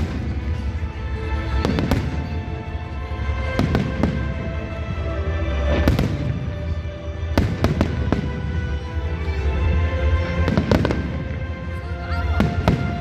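Aerial fireworks bursting, a sharp bang every second or two, over steady music.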